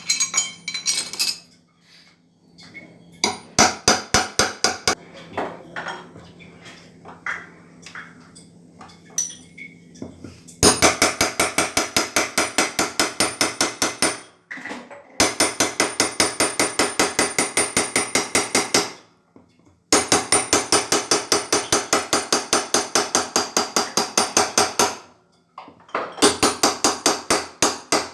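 Hammer blows on metal in fast, even runs of about seven strikes a second, each with a bright ringing edge. The runs break off for a moment three times, after a few seconds of scattered single knocks. This is the kind of hammering used to drive out or seat a washing machine's drum bearings.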